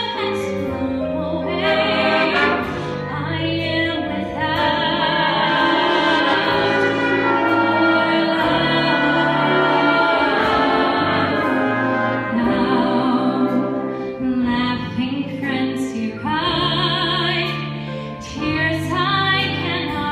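A vocalist singing with a jazz band accompanying, the held notes sung with vibrato.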